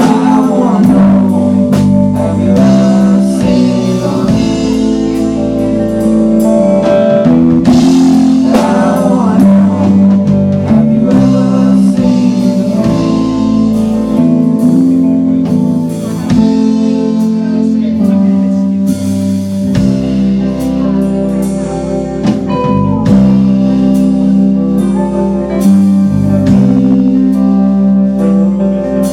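A live rock band playing: electric guitars over bass guitar and a drum kit.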